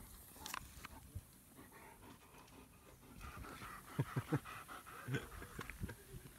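German Shepherd panting, with a few short knocks about four seconds in and one more a second later.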